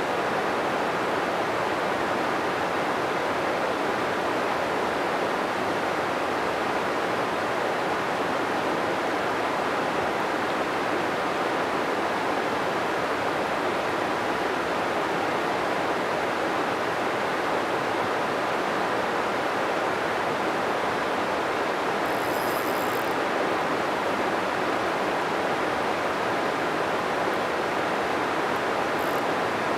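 Steady rushing of a river's flowing water, an even hiss that does not change.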